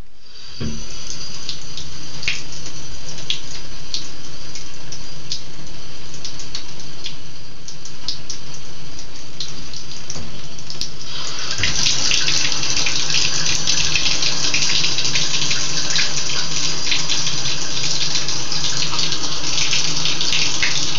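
Bathtub faucet turned on and running, water splashing steadily into the tub; about eleven seconds in the flow gets louder and brighter.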